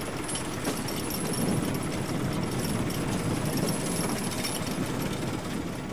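Machinery running on a fishing boat's deck with a steady, rapid mechanical rattle and hum.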